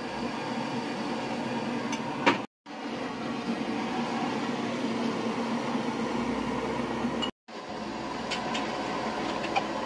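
Steady hissing background noise in a small tea stall, with one sharp clink of glass tumblers about two seconds in and a few lighter clinks near the end.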